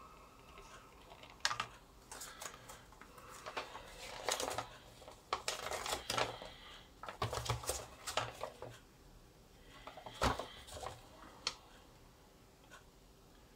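Plastic blister packaging and small objects handled on a desk: an irregular run of clicks, crinkles and light knocks, the loudest a sharp knock about 10 seconds in.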